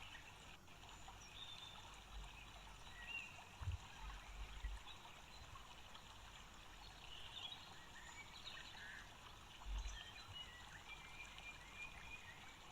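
Near silence: faint background ambience with a few brief, high chirps and a few soft low thumps.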